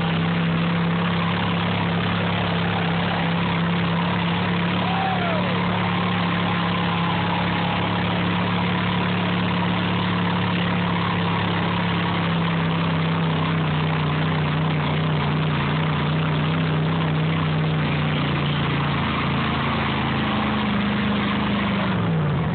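Lifted K5 Blazer's engine held at steady, high revs while it churns its big mud tires in a deep mud pit. The pitch sags slightly midway, then the revs drop sharply near the end as the driver lets off.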